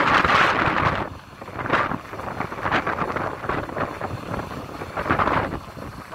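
Hidromek 230LC hydraulic excavator working under load, its diesel engine and hydraulics straining as the bucket digs and curls a scoop of soil. Gusting wind buffets the microphone in irregular swells and is the loudest sound.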